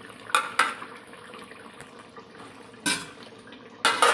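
Metal ladle and spatula clanking against an aluminium cooking pot and its lid: five sharp knocks, two just after the start, one about three seconds in and two near the end.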